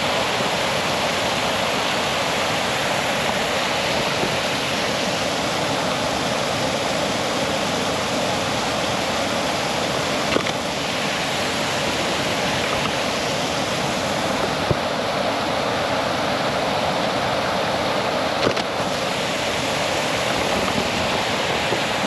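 Shiraito Falls, a wide waterfall of many thin streams spilling over a rock face, making a steady rushing sound, with three brief clicks.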